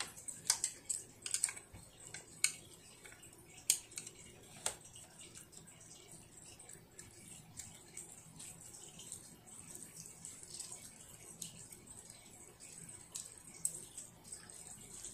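A young child eating at the table: small sharp clicks and taps, many in the first five seconds and only a few after, over a faint steady high hiss.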